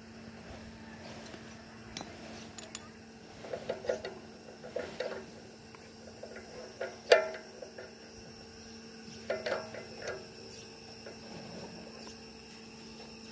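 Scattered metallic clicks and clinks from hands working on a stopped abrasive cut-off saw's disc and arbor while the disc is being changed. The sharpest clink comes about seven seconds in, over a faint steady hum.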